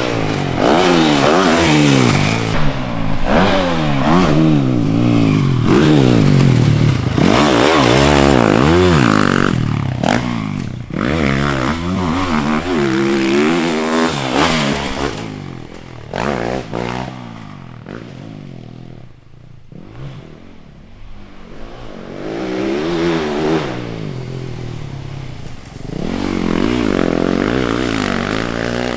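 Yamaha YZ450F's four-stroke single-cylinder motocross engine revving hard and backing off again and again, its pitch rising and falling as the bike is ridden on a dirt track. It becomes quieter for a few seconds past the middle, then loud again near the end.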